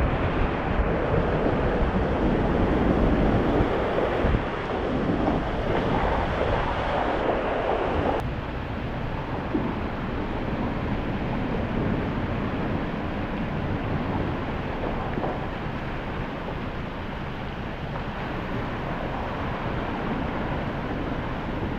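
Steady rushing wind and water noise on an outside vehicle-mounted camera's microphone as an off-road vehicle drives a flooded trail. About eight seconds in it drops suddenly to a quieter, even rush.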